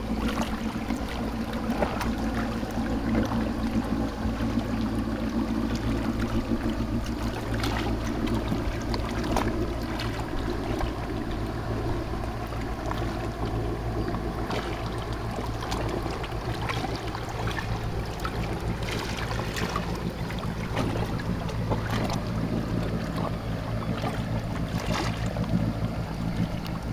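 Fishing motorboat's engine running steadily with a low, even hum as the boat comes back into harbour.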